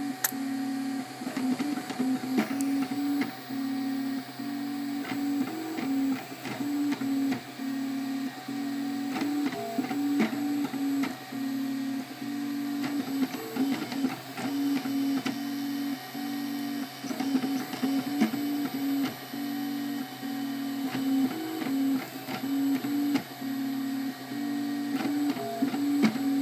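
Makerbot Replicator 3D printer running a print: its stepper motors sing a low tone that breaks off and resumes about once a second, shifting pitch slightly with each move of the extruder head. Under it runs a steady hum from the extruder's cooling fans, with faint clicks here and there.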